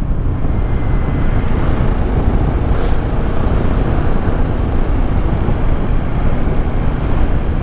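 Steady rush of wind and road noise from riding a Royal Enfield Himalayan 450 motorcycle, heaviest in the low rumble and unbroken throughout.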